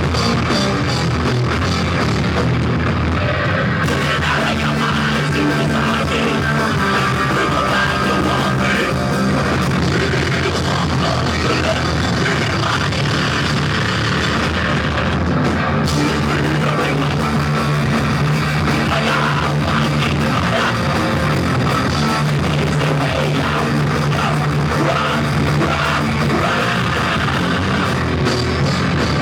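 Rock band playing live, heard loud and distorted: electric guitars, bass and drums in a continuous heavy rock song, with some singing.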